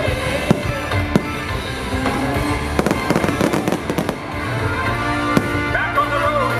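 Fireworks going off over loud music. There are single bangs about half a second and a second in, a quick crackling run of reports around three to four seconds in, and another bang near the end.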